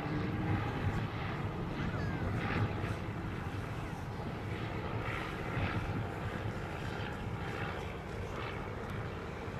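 Vintage light propeller aircraft flying overhead, their piston engines running steadily in a continuous low drone, with faint voices of onlookers mixed in.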